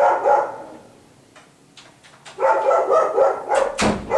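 A dog barking: a burst at the start, then a quick string of five or six barks about two and a half seconds in. A single sharp knock follows near the end.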